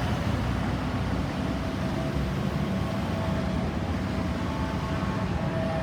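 Steady low rumble of road traffic. About halfway through, a faint steady tone of an approaching emergency vehicle's siren comes in and grows louder.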